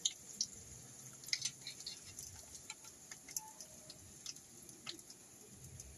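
Battered kangkong leaves frying in oil in a wok over a low flame: a faint steady sizzle with scattered small pops and ticks.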